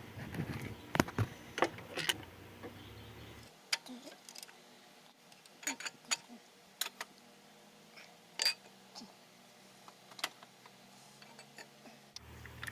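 Metal hand tools clinking against engine parts while bolts are undone from the timing chain tensioner: a quick cluster of sharp clicks at first, then single clicks and knocks every second or two.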